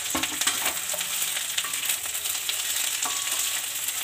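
Cut okra sizzling in hot mustard oil in a stainless steel kadhai as a steel spoon stirs it, with a few spoon clinks against the pan near the start and about three seconds in.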